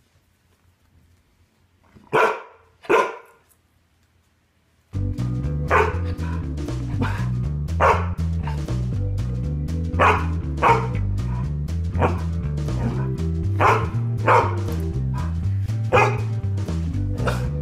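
A large white fluffy dog barking at a feather: two sharp barks, then more single barks every second or two. Background music with a steady repeating bass line comes in about five seconds in and runs under the barks.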